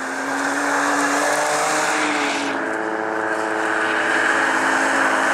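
Rally car engine held at high, fairly steady revs.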